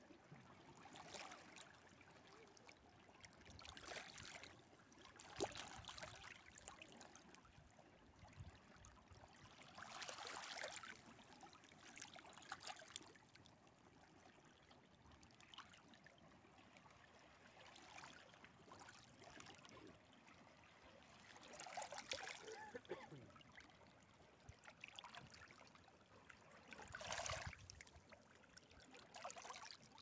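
Faint lapping of shallow seawater against the rocky edge of a rock pool, in soft washes every few seconds.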